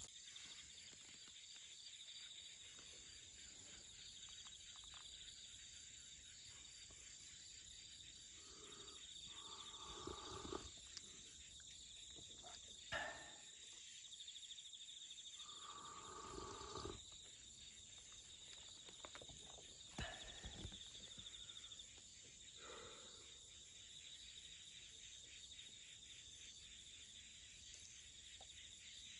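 Insects chirring steadily in the grass, a faint high trill, with a few brief louder sounds near the middle.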